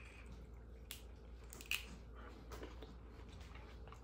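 A person biting and chewing crisp green beans, with faint crunches and one louder crunch just under two seconds in.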